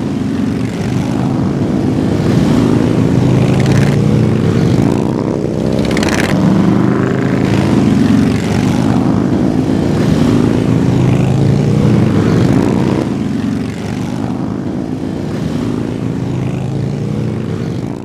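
Motorcycle engines running, their pitch rising and falling as they rev.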